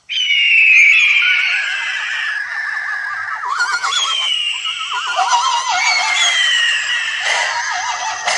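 Designed hippogriff creature call: eagle screeches layered with horse whinnies. High screeches fall in pitch again and again over a trembling, whinnying cry beneath, with no pause.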